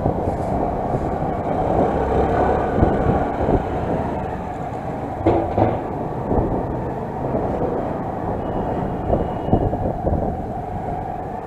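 Motorcycle engine running at low speed with a steady rumble and road noise, picked up by a helmet chin-mounted action camera. Sharp knocks come about five seconds in and again near the end.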